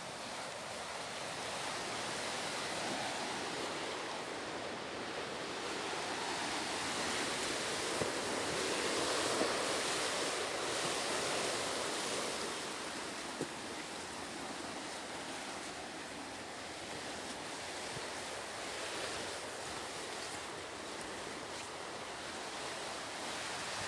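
Ocean surf breaking on a rocky shore: a steady rushing wash that swells and eases, loudest around the middle, with a few light ticks.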